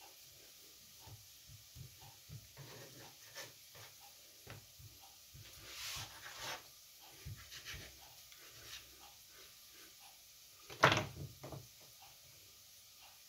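A small kitchen knife and fingers working fresh sausage meat on a wooden cutting board: soft, scattered clicks and taps of the blade and hands on the board. Late on comes one sharp clack, the loudest sound, as the knife is laid down on the board.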